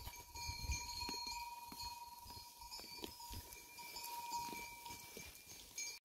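Goat herd's bells ringing faintly: a steady ringing tone with scattered light clinks.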